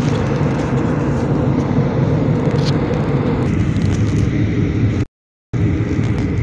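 Steady roar of a jet airliner's engines and airflow, heard from inside the cabin at a window seat by the wing. It drops out completely for about half a second a little after five seconds in, then resumes.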